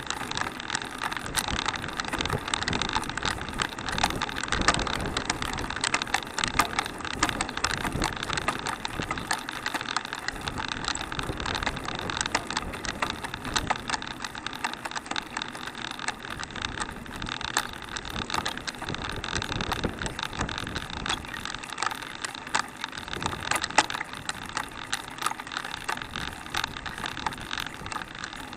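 Handcycle rolling along a rough asphalt road: a steady rattle of chain and frame with many small clicks over the hiss of the tyres.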